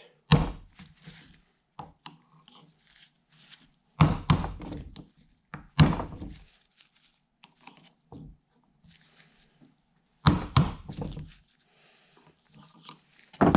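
Hammer striking a brass punch to drive a sealed bearing out of an old John Deere mower-deck spindle housing: single sharp blows a few seconds apart, with a quick pair near the end. The bearing is stuck fast in a rusted housing and won't easily come out.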